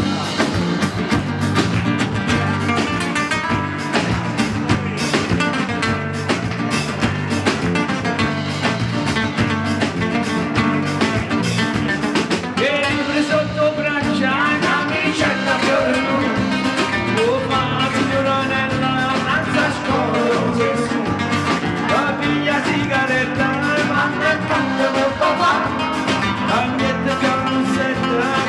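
Live band playing a song: acoustic guitars over a drum kit, with a singer coming in about twelve seconds in.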